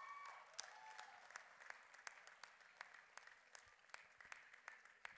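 Faint, scattered audience applause: separate hand claps a few times a second, thinning out toward the end.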